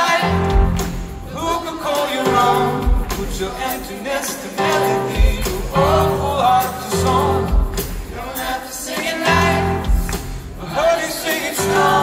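Live band music: a male lead singer singing phrases into a microphone over the band, with a deep bass note pulsing under each phrase and a sustained keyboard note held beneath.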